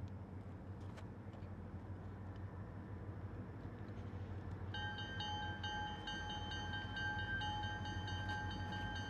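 Diesel freight locomotive rumbling low as it approaches, then its air horn sounds about halfway through: a chord of several steady notes held with short breaks.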